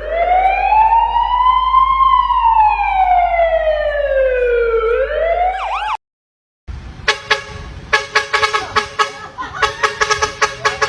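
Siren wail: one long pitched tone rises for about two seconds, falls slowly, begins to rise again and cuts off abruptly. After a short silence, a fast rhythmic run of horn-like tones and sharp beats begins.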